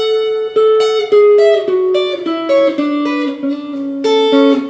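Clean electric guitar, a Telecaster-style solid body, picking two-note triad shapes one after another, about twice a second, stepping down in pitch.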